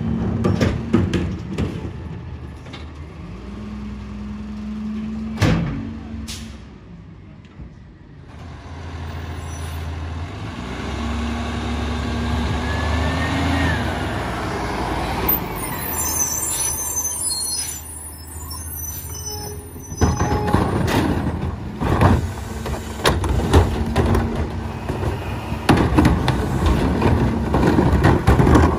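Rear-load garbage truck (Peterbilt 348 with an EZ-Pack Goliath body) at work. Its diesel engine runs and twice holds a higher, steady pitch for a few seconds. There is a brief hiss of air around the middle, and in the last third a run of bangs and clatter.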